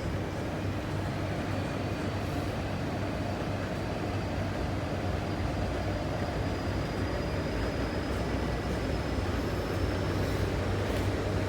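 CRRC Changchun electric multiple-unit metro train running, heard from inside the carriage: steady rumble of wheels and running gear, with a thin, high motor whine that slowly rises in pitch.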